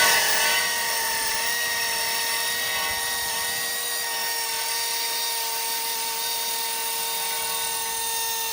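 Small impact gun running continuously on a driveshaft bolt, a steady whine with an even rattle that does not change pitch, then cutting off abruptly near the end.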